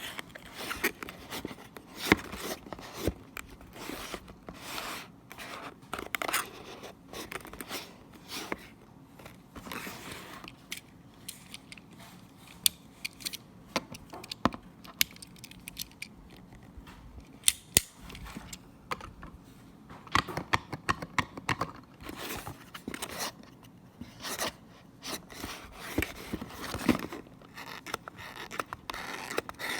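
Packaging being handled and opened by hand: irregular scraping, tearing and rustling with sharp clicks and taps, thinning out to scattered clicks for a while in the middle.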